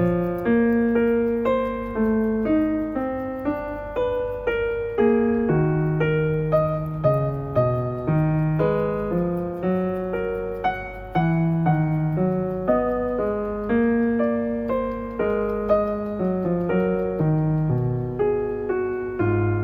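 Background piano music: a continuous run of struck notes and chords at an even, moderate pace, each note fading after it is struck.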